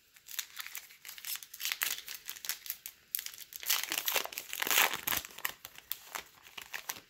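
A baseball card pack's wrapper being torn open and peeled back by hand: an irregular crinkling crackle with tearing, loudest about four to five seconds in.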